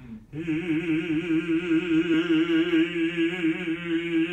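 A man singing one long held note with an even vibrato, entering about half a second in. It is a sustained sung vowel showing the singer's steady tone placement.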